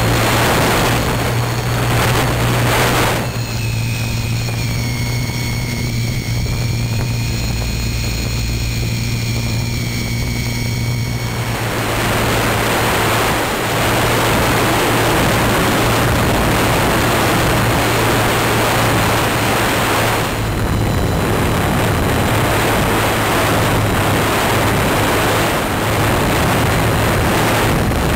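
Electric motor and propeller of a GWS Slow Stick RC plane, heard through the camera riding on board: a steady low drone with a thin high whine. From about twelve seconds in a loud, even rush of air noise over the microphone takes over.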